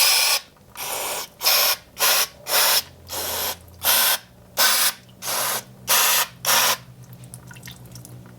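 Aerosol can of brake cleaner sprayed in about a dozen short hissing bursts to clean a transfer case part, followed by a few faint light clicks near the end.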